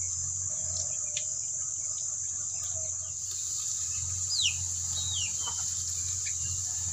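Crickets chirring in one steady high-pitched drone, with a few short, falling bird chirps about four to five seconds in.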